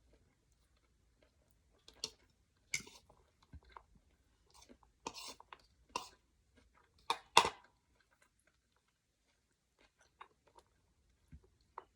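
Eating sounds from a plate of vermicelli noodle papaya salad: irregular chewing and crunching bites, busiest between about two and eight seconds in, the loudest a little past seven seconds.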